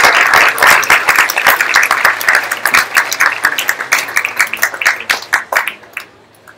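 Audience applauding at the end of a talk. The dense clapping thins to scattered claps and dies away about six seconds in.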